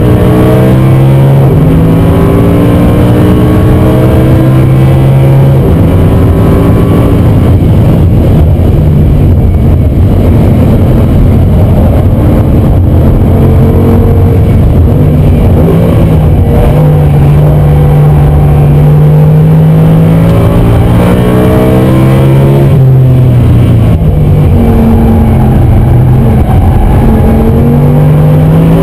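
Audi R8 V10 plus's 5.2-litre V10 at racing speed, heard inside the cabin. Its note climbs and falls with throttle and gear changes, dropping and climbing again about two thirds of the way through, over steady tyre and road noise.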